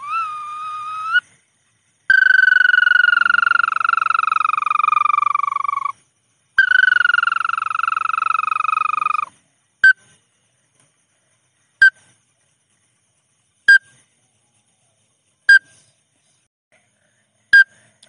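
Lure call of the bawangan paddy-field bird. It opens with a short wavering note, then two long whistled notes of about four and three seconds that each slide slowly down in pitch. Short clipped notes follow, about one every two seconds.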